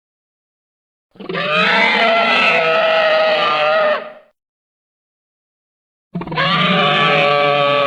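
Two dinosaur roar sound effects, each a drawn-out, pitched roar about three seconds long, separated by a few seconds of silence. The first starts about a second in; the second begins about six seconds in.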